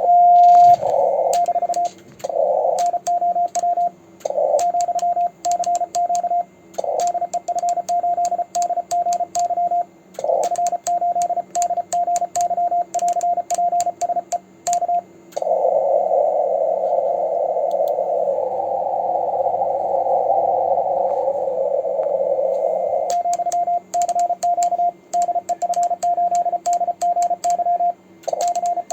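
Morse code sent with a homemade 3D-printed iambic paddle: a single tone keyed rapidly in dits and dahs, with the paddle's contacts clicking along with the keying. About fifteen seconds in, the keying stops and narrow-filtered receiver hiss takes over for several seconds before sending resumes.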